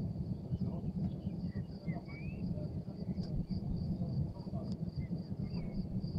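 Countryside ambience: crickets chirring steadily in a high, even pulse, a few short bird chirps scattered through, and a loud low rumbling noise underneath.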